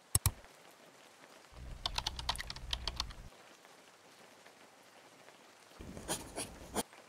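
Computer keyboard typing sound effect: a double click at the start, a quick run of key clicks from about one and a half to three seconds in, and another short run of clicks near the end.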